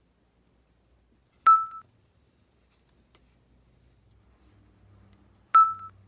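A short electronic chime sound effect, a sharp click with a brief steady tone, heard twice: about a second and a half in and again near the end. A faint low rumble of handling sits underneath in the second half.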